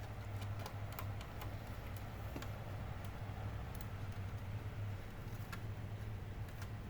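Small irregular clicks and ticks of a screwdriver and screw as the laptop's SSD is fastened down with its single screw, over a steady low hum.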